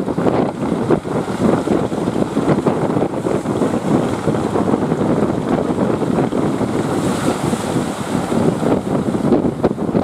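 Strong wind buffeting the microphone, with the wash of sea surf beneath it; the gusting rumble is steady and loud throughout.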